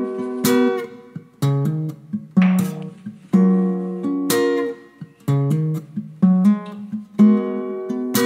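Background music: acoustic guitar chords picked and strummed at an easy pace, with no vocals.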